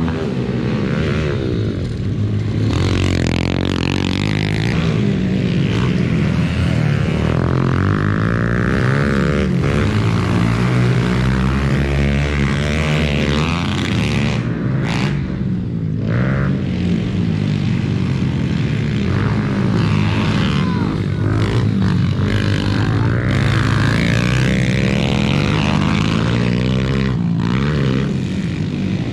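Several pit bikes racing, their small single-cylinder engines revving up and easing off over and over without a break.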